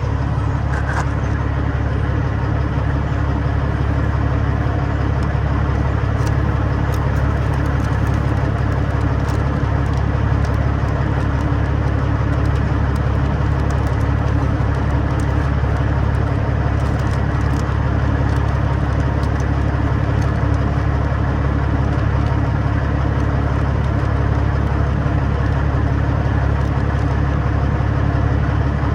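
Freightliner Classic semi truck's diesel engine running steadily, a constant low drone, with faint light clicks over it.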